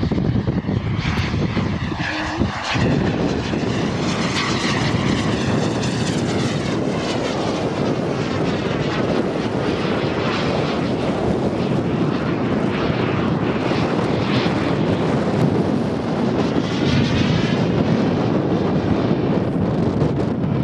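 Skymaster A-10 radio-controlled model jet in flight, its engines running steadily. The noise swells and wavers as the model moves across the sky.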